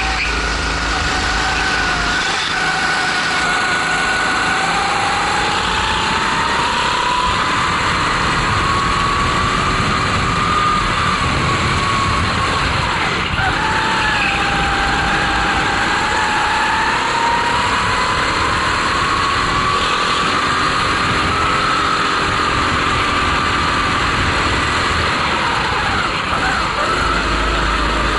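Racing kart's Honda GX270 single-cylinder four-stroke engine running hard in a race, its pitch climbing slowly with speed, dropping sharply about thirteen seconds in as the kart slows, then climbing again, over a steady rush of wind and tyre noise.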